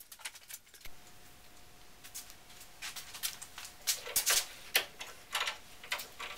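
One-handed bar clamps being ratcheted tight onto a wooden face frame: an irregular run of about a dozen short clicks and rasps from the trigger handles, starting about two seconds in.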